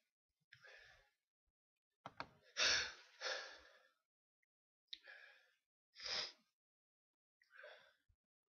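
A person's sharp, breathy gasps and sneezes, one after another with short pauses between, the loudest pair about three seconds in and another strong one about six seconds in.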